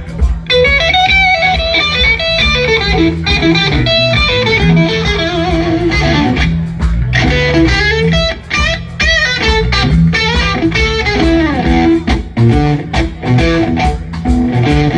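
Electric blues guitar solo with bent, gliding notes over bass guitar and drums.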